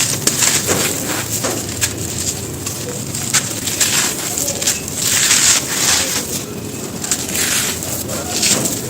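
Soft, dry stone-like material being crushed and crumbling, a dense crunching crackle. It grows louder about five seconds in and again near the end.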